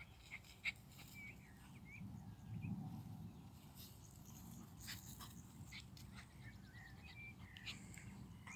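Quiet outdoor ambience: faint short chirps of small birds, scattered light clicks and rustles, and a soft low rumble that swells briefly about two seconds in.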